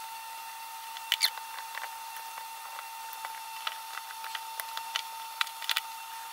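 Metal ice cream scoop and spatula clinking and scraping against a glass baking dish and a plastic ice cream tub while ice cream is scooped out and spread: scattered sharp clicks, the loudest about a second in, over a steady faint high hum.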